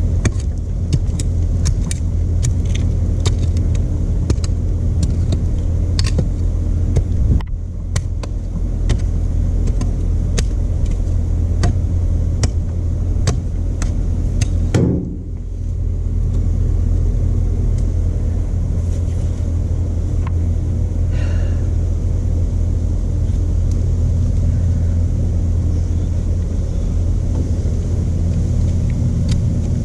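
Stump grinder's 13 HP Honda engine running steadily at working speed, with many sharp ticks throughout. The engine note dips briefly about a quarter of the way in, and again about halfway, where its pitch falls for a moment and then recovers.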